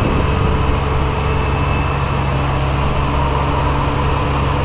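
Diesel engines of a Daewoo 75V compact excavator and a Bobcat T180 tracked skid-steer loader running together in a steady, even drone.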